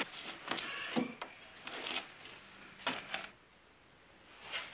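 Wooden beams and planks of earthquake rubble being shifted by hand: a series of knocks, scrapes and creaks, with a short lull about three and a half seconds in.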